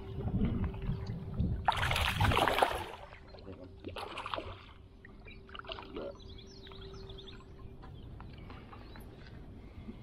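Hooked smallmouth bass thrashing at the water's surface on the line: a loud splash about two seconds in, a shorter splash a couple of seconds later, then quieter water sloshing as the fish is drawn to hand.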